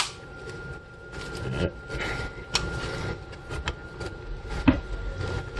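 Scattered clicks and light knocks of hard plastic and metal parts being handled as a 3.5-inch hard drive in its drive guide is fitted into a PC case, with a faint steady high tone underneath.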